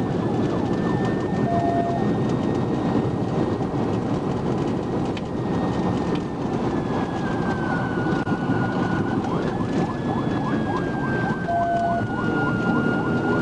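Police cruiser's siren sounding over heavy road and wind noise at pursuit speed, around 140 mph. Two short beeps cut in, one about a second and a half in and one near the end.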